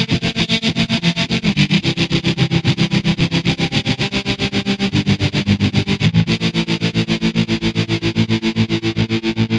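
Distorted electric guitar music played through an amp, with a fast, even pulsing of about eight beats a second under held notes.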